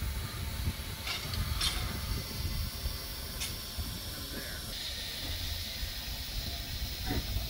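Steady hiss of steam from a standing narrow-gauge steam locomotive over a low rumble, with three short, sharper hisses in the first half.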